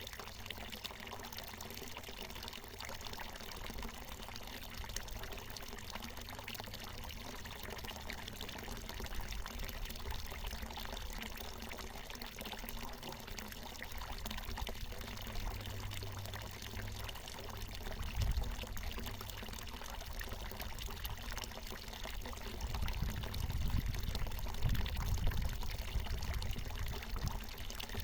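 Water from a natural mountain spring falling and splashing in a steady pouring stream. Low, uneven rumbling comes and goes in the second half.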